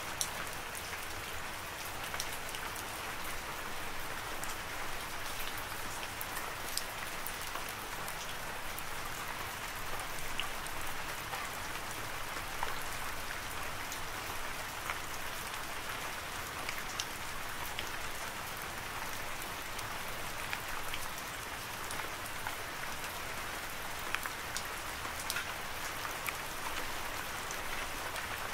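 Steady rain: an even hiss with many scattered sharp ticks of individual drops.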